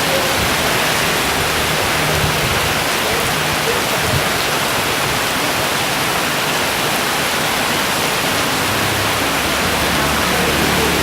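Heavy downpour: rain pouring steadily in a loud, even rush. A low hum joins near the end.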